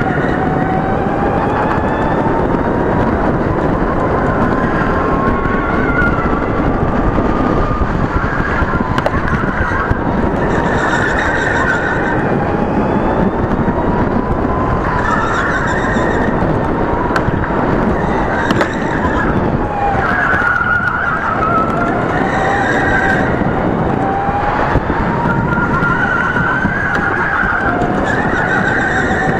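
Electric go-kart motor whining, its pitch climbing as the kart accelerates and dropping as it slows for corners, several times over. Under it is a loud, steady rush of wind and ride noise on the onboard microphone.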